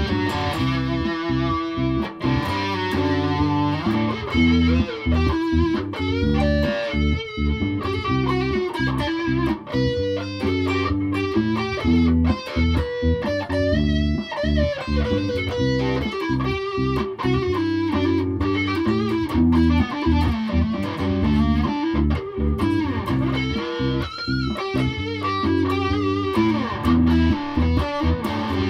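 Aria Pro II Thor Sound electric instrument played unaccompanied through an amp: a continuous jam of quick plucked notes with a strong low end.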